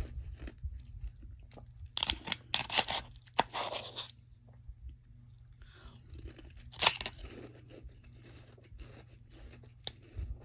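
Close-up chewing of soft freezer frost, crunching in bursts: a dense run of crunches about two to four seconds in and a single sharp, loud crunch near seven seconds, with small soft crackles between.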